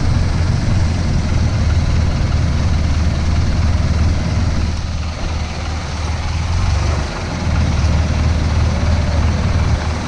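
Dump truck's diesel engine running steadily with a deep low drone, the engine note easing briefly about seven seconds in.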